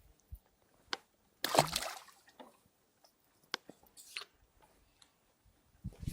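A short splash of water about one and a half seconds in, among scattered faint clicks and knocks.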